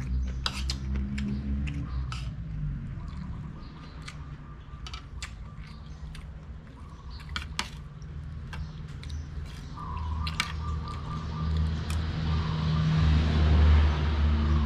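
Metal spoon and fork clinking against ceramic plates and a bowl while eating, with sharp clicks scattered throughout. Under them a steady low rumble that grows louder near the end.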